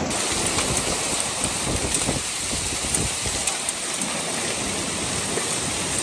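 Heavy rain mixed with hail falling in a steady, dense rush, with faint scattered ticks of hailstones striking.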